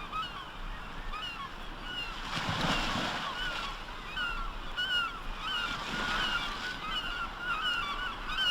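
A flock of birds calling without pause in short, overlapping, curving cries, over the wash of the sea, with a wave surging about two and a half seconds in.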